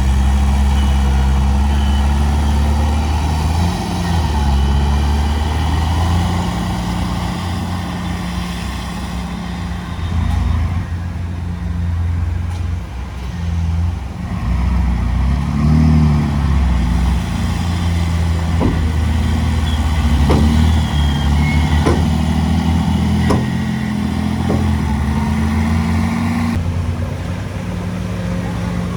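Heavy-equipment diesel engine running under load, its pitch rising and falling, with several sharp knocks in the second half.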